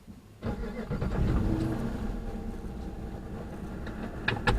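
2015 Dodge Charger R/T's 5.7-litre HEMI V8 starting up after being shut off, then running with a steady low rumble.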